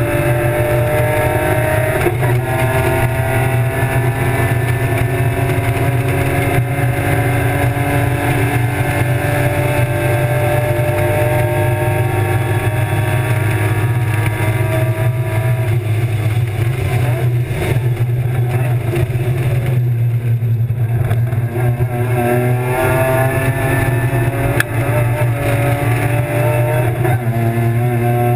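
BMW E36 325's M50 straight-six engine running hard at race pace, heard from inside the stripped cabin. Its pitch climbs slowly through each gear and drops back at the shifts, easing off briefly about two-thirds of the way through before pulling again.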